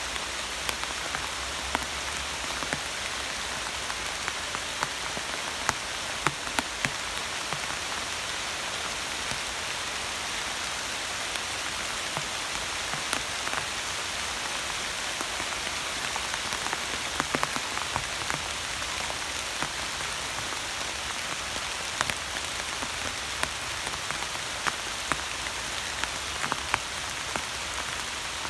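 Steady rain falling, with a constant hiss and scattered sharper drops striking close by.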